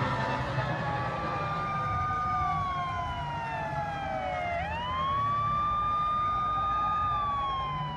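Electronic wailing siren of a toy fire engine. The pitch rises and holds, sinks slowly, swoops back up about halfway through and holds again, then starts to fall near the end.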